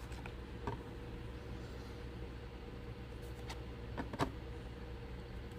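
A few short crinkles and clicks from a trading-card pack wrapper being handled and opened, the sharpest about four seconds in, over a steady low hum.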